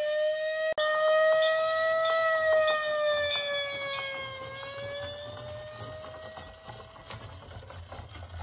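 Fire-engine siren sound effect wailing: one tone that slowly rises and falls, fading out over several seconds, with a split-second dropout under a second in. A faint low rumble grows underneath as the siren fades.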